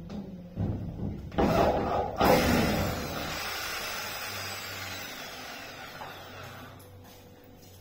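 A few knocks against a plywood door panel, then a hand-held electric drill starts suddenly and runs, its sound fading away over several seconds.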